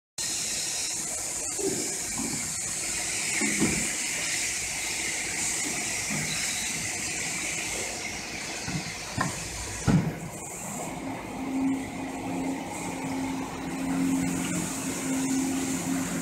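Automatic piston filling machine for motor oil running with a steady hiss, scattered clunks and knocks, and a loud thump about ten seconds in. After that the hiss is weaker, and a low hum comes and goes.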